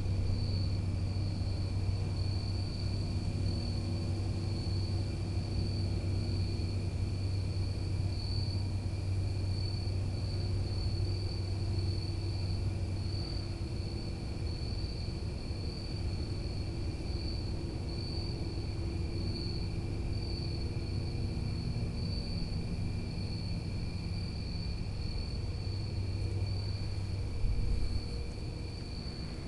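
A steady, low turbine-like droning hum from an unidentified distant source, its low end constant. Over it runs a pulsing high chorus of crickets.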